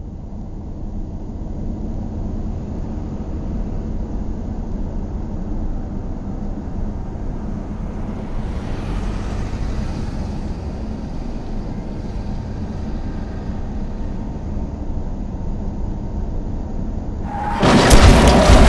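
Steady low rumble of a car driving, heard from inside the cabin, with a brief swell of hiss about nine seconds in. Near the end a sudden, much louder crash breaks in, full of sharp cracks and clatter: the car crashing.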